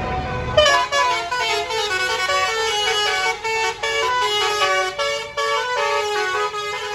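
A bus's Basuri telolet horn playing a tune of quickly changing multi-tone notes, starting about half a second in.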